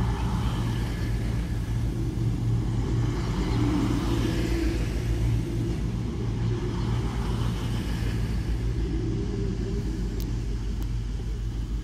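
Virgin Voyager diesel multiple unit moving past along a platform: a steady low drone from its underfloor diesel engines, with rushing wheel noise that swells three times as cars go by.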